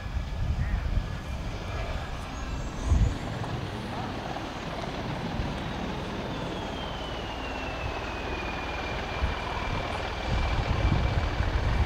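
F-16 jet engine noise from a departing fighter: a distant rumble with a high whine that slides down in pitch about halfway through. Gusts of wind buffet the microphone, and there is a thump about three seconds in.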